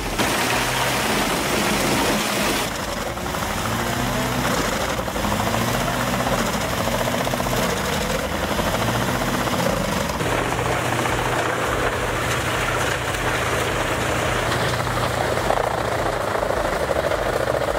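Heavy industrial wood chipper running under load: its engine note dips and recovers several times as material is fed in, then holds steady, over a dense grinding noise of wood being chipped.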